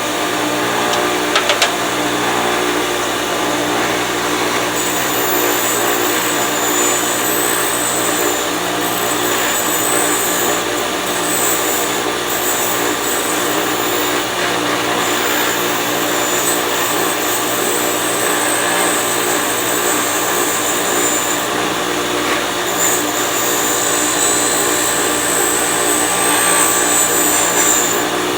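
Bench grinder running steadily while a steel camber bolt is pressed to the wheel, grinding built-up MIG weld flat over worn grooves on its shaft. A high, hissing grind comes in a few seconds in and drops out now and then as the work is held to the wheel and eased off.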